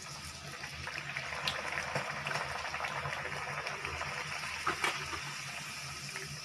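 A wheat-flour puri sizzling and bubbling as it deep-fries and puffs up in hot oil in a kadhai, with a few sharper crackles.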